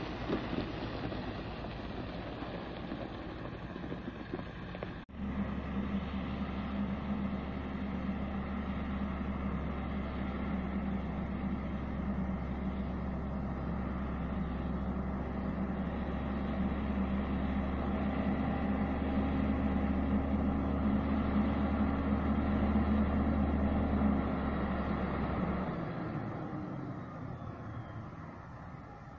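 A farm tractor towing a sugar cane haulout bin passes with a rushing engine and tyre noise. After a cut, a narrow-gauge sugar cane railway diesel locomotive hauling a rake of cane bins runs with a steady low engine note that slowly grows louder as it approaches. The engine note drops away about three-quarters of the way through.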